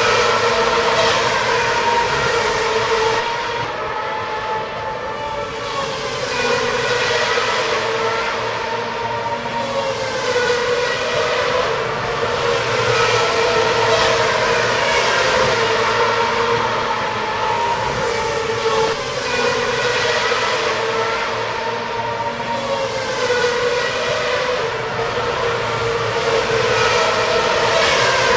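Racing cars running at high revs and passing one after another, their engine pitch sliding down as each goes by. The sound swells and dips every several seconds.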